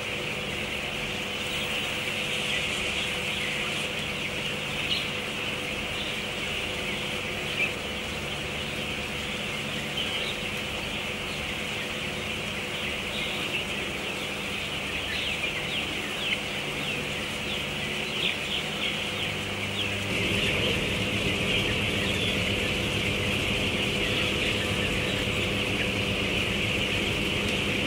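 A large flock of young broiler chicks peeping continuously, a dense chorus of overlapping high cheeps, over a steady mechanical hum that gets louder about two-thirds of the way through.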